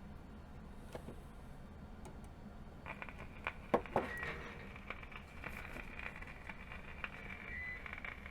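A 1953 Philco 53-956 tube radio's speaker gives a low mains hum with scattered crackles and clicks, and a faint hiss comes up about three seconds in. No station comes through: the FM section is still dead after the recap.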